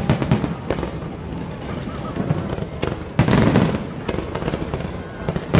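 Aerial fireworks going off: a run of sharp bangs with crackling between them, the biggest, longest burst a little past three seconds in.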